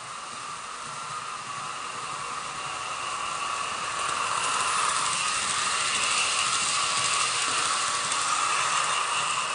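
HO-scale model of the VT 11.5 TEE diesel train running on its track: a steady whirring hiss from its motor and wheels on the rails. It grows louder as the train nears and is loudest from about halfway in as the train passes close by.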